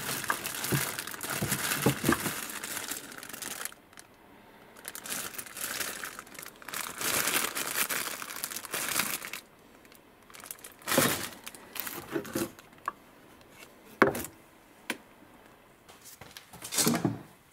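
A thin plastic bag crinkling and rustling as paint tins are rummaged out of a cardboard box, with a few short knocks of tins or cans later on.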